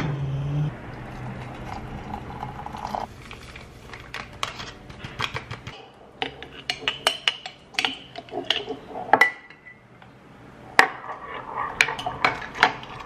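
Kitchen clatter: a metal spoon and a glass jar clinking against a ceramic mug, in many short, irregular taps, with a spoon stirring and tapping in the mug near the end.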